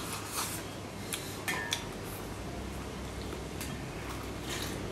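Chopsticks clicking against a ceramic rice bowl as rice is scooped from it into the mouth: a handful of light, separate clicks.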